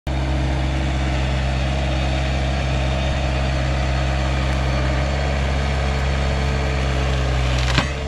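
Vermeer 725 mini skid steer's engine running steadily as the machine creeps forward, with one sharp knock near the end as the TMK 200 tree shear's jaws close on a tree trunk.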